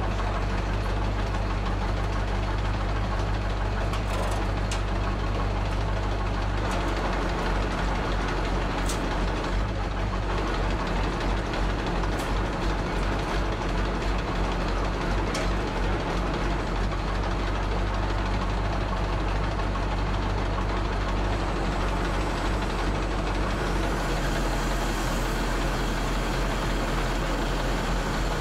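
Diesel engine of a truck-mounted crane running steadily while it lifts a truck cab, its note shifting about six seconds in. A few short metallic clinks are heard over it.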